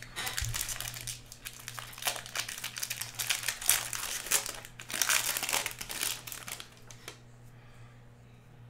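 Card-pack wrappers crinkling as a pack of baseball cards is handled and unwrapped, the crinkling stopping about seven seconds in.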